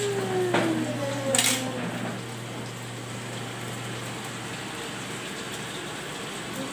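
Two sharp clinks of a pan against a plate about half a second and a second and a half in, as thick sauce is scraped out of the pan onto the plate, then a steady background hiss.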